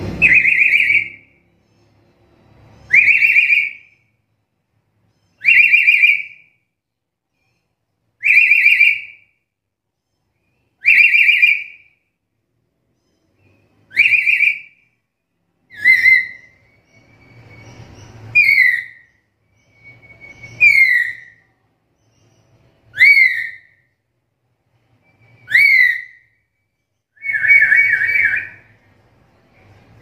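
Black-capped lory giving a loud, whistle-like call about every two and a half seconds, a dozen times in all. The later calls rise and then fall in pitch, and the last one is longer.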